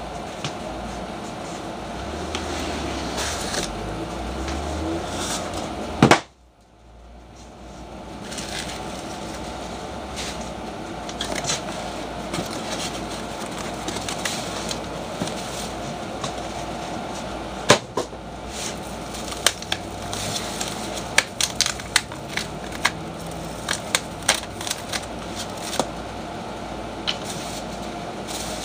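Cardboard guitar packaging being handled and opened, with a loud knock about six seconds in and scattered clicks and knocks that come thick in the second half, over a steady background hum.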